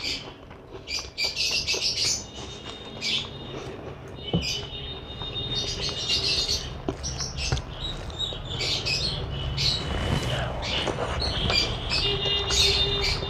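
Pet budgerigars and lovebirds chirping and squawking in quick, busy runs, over a low steady hum, with a few faint sharp clicks.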